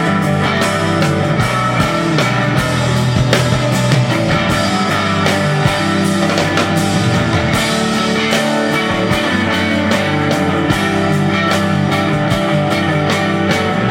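Rock music with guitars and a drum kit playing a steady beat.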